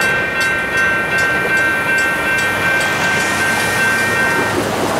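Railroad grade-crossing bells ringing at an even beat of about three strikes a second while the crossing gate arms rise, the sign that the train has cleared the crossing. The bells stop about four and a half seconds in, leaving the steady noise of road traffic starting across.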